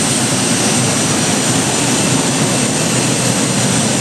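Steady jet airliner cabin noise inside an Airbus A380 prototype: an even, unbroken rush of engine and air noise.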